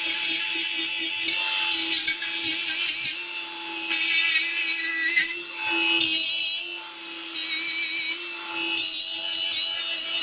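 Small electric buffer running with a steady motor whine, pressed against welded steel in repeated passes: a high scratchy rasp of the wheel on the metal, easing off for a moment between passes.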